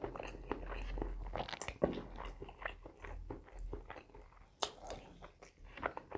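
A person chewing a mouthful of rice and curry eaten by hand, with irregular wet smacks and clicks of the mouth.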